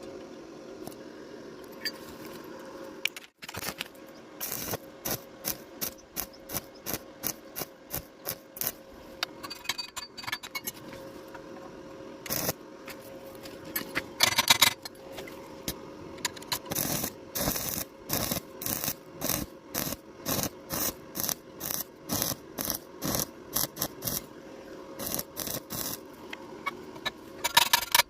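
A hand tool scraping or rasping on metal in even strokes, about two a second, with a few louder scrapes along the way.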